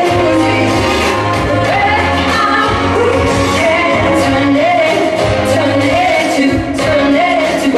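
A woman singing a pop song live into a handheld microphone, her melody wavering with vibrato, over instrumental accompaniment with a steady low bass.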